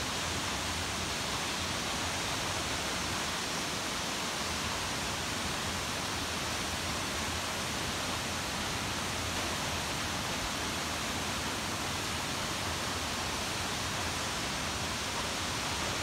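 Steady rushing roar of a tall waterfall plunging into its pool, unchanging throughout.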